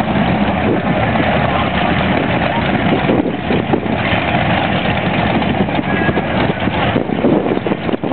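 Drag cars' engines idling loudly at the start line, with voices over them.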